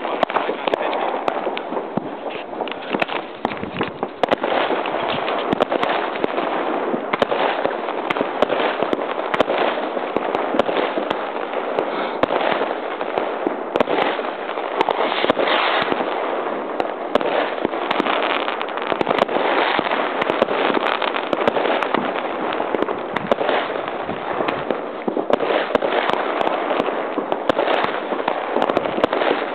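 A fireworks cake firing a rapid, continuous string of shots: launch pops, star bursts and crackling overlap without a break.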